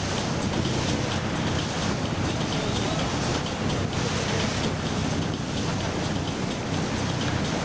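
Motor boat engine running with a steady low rumble, under a constant wash of wind and water noise.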